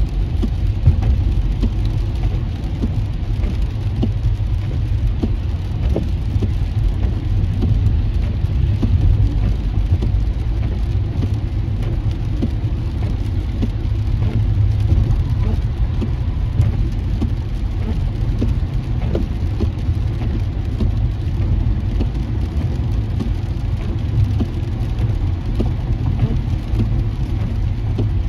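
Car driving on a rain-soaked freeway, heard from inside the cabin: a steady low road and tyre rumble, with rain hitting the windshield as scattered faint ticks.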